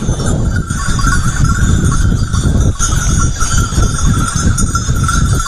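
Many bells on a passing flock of sheep clanking and jangling continuously, over a heavy low rumble of wind on the microphone.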